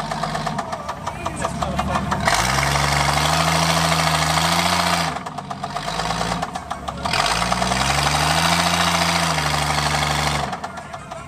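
AMC Eagle engine, which has a heavy rod knock, revved to full throttle in two long pulls of several seconds each, dropping back about five seconds in and again near the end. While the engine is held high, the wheels spin and smoke on the wooden platform deck.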